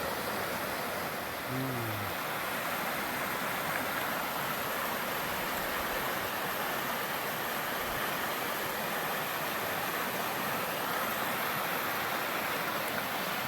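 Rain-swollen river rushing around boulders: a steady, even wash of running water.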